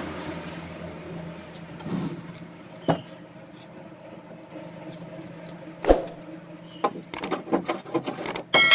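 Wooden knocks and clatter as plywood panels are handled against a plywood boat hull: single knocks about 2, 3 and 6 seconds in, the one near 6 seconds the loudest, then a run of quick clicks and taps. A steady low hum sits underneath, and a ringing bell-like ding sets in right at the end.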